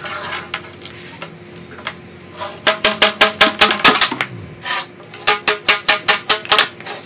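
Two quick runs of hollow knocks on PVC pipe, about five or six a second, while a cemented pipe joint is put together.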